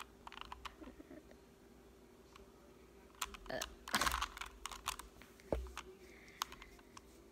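Plastic Rubik's Cube being twisted by hand: irregular clusters of clicks and clacks as the layers turn.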